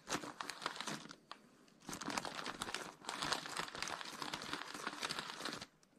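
Baking paper crinkling and rustling under a hand-held steam iron pushed over it in short strokes, pressing hot-melt seam-sealing tape onto a tarp. A burst of rustling at the start, a short lull about a second in, then steady rustling that stops shortly before the end.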